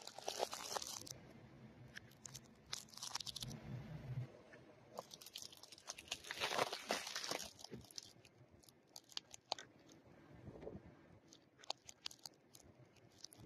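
A car tyre rolling over and crushing pine cones, with dry crunching and cracking in several bursts and scattered sharp snaps between them as the scales break.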